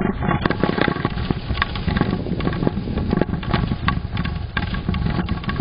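Continuous low rumble with dense, rapid rattling and clicking, as of a house and its contents shaking in an earthquake.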